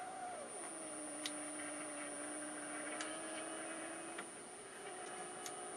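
Admiral 20B1 tube television running without a stable picture: a faint steady high-pitched whine, typical of the horizontal sweep circuit, with a lower wavering tone that slides down in pitch about half a second in and rises again near the end. A few sharp ticks sound over it.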